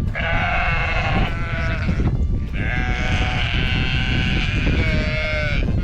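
Sheep bleating: a call about a second long, then a longer one of about three seconds, over a steady low rumble.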